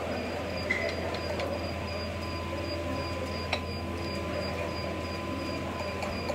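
Knife and fork working through kunafa on a ceramic plate, with a few light clicks of cutlery, the sharpest about three and a half seconds in, over a steady low machine hum.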